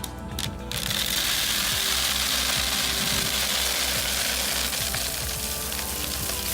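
Background music, joined about a second in by a loud, steady hiss that lasts to the end.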